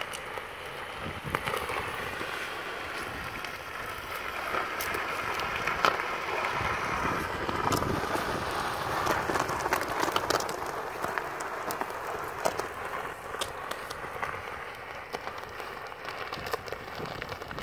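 Small electric mobility scooter running steadily over asphalt with a faint motor whine, towing a plastic laundry basket that scrapes and rattles along the pavement, with scattered clicks throughout.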